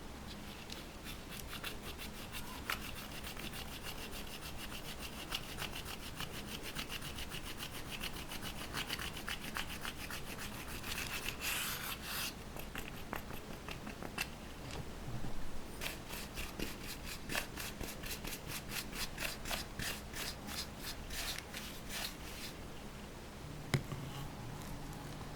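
Slime being worked by hand, pressed and stretched with a rapid run of small wet clicks and pops, several a second, busiest about halfway through and again in the later part.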